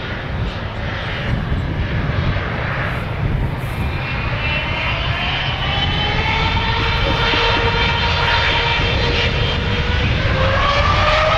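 Jet airliner engines spooling up to take-off thrust: a steady rumble, joined from about halfway through by a whine that rises steadily in pitch and grows louder.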